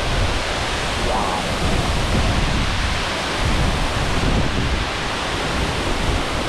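Maruia Falls, a large waterfall swollen by heavy overnight rain, pouring down in a steady, loud rush with a deep rumble underneath.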